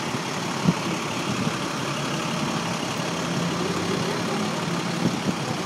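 A large vehicle's engine idling steadily, heard as a low steady hum under traffic noise, with one brief knock less than a second in.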